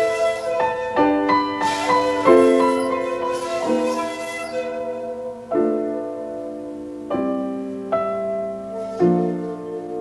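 Slow ambient duet of piano and shakuhachi (Japanese end-blown bamboo flute): piano chords struck every second or two and left to ring out, with breathy flute notes over the first three seconds.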